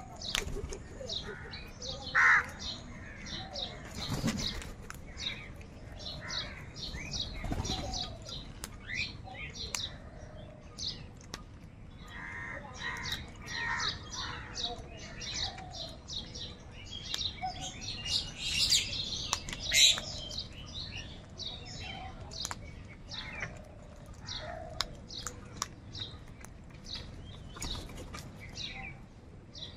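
Many crows cawing at once, with a dense stream of short, high bird chirps throughout. The loudest calls come about two seconds in and around two-thirds of the way through.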